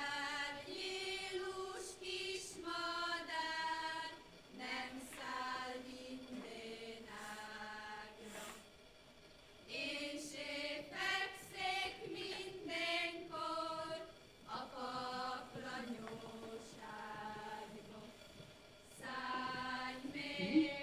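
A group of voices singing a Hungarian folk song unaccompanied, in phrases of a few seconds with short breaks between them.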